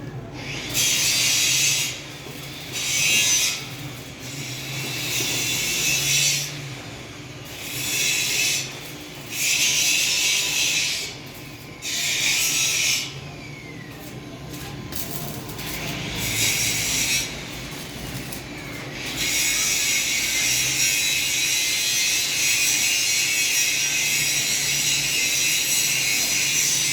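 Metalworking at a welding shop: a harsh, high-pitched hiss comes in bursts of a second or two, several times over, then runs without a break for the last third.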